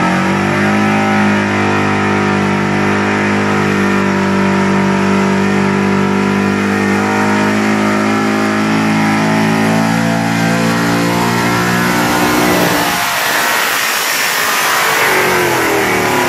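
Pickup truck's engine at wide-open throttle, held at high steady revs as it drags the weight-transfer pulling sled, then cutting off about twelve seconds in as the pull ends. A rushing noise follows, and near the end an engine revs up again.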